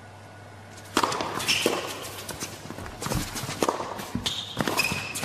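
Tennis rally on an indoor hard court: the serve is struck hard about a second in, then the ball is hit back and forth in sharp racket strikes and bounces, with shoes squeaking on the court between shots.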